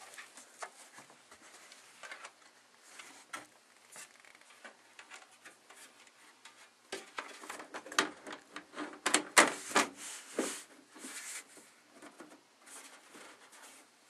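A computer case's windowed side panel being handled and set back onto the chassis: scattered light clicks and knocks, with a cluster of louder knocks in the second half.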